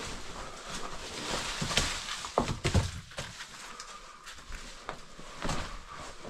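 Irregular knocks and scrapes of people moving over rock and handling climbing gear in a mine adit, with a few short falling squeaks about two and a half seconds in.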